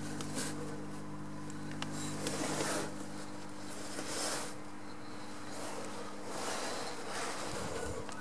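Lift machinery humming steadily, then stopping about a second and a half in, followed by a few brief rustling noises.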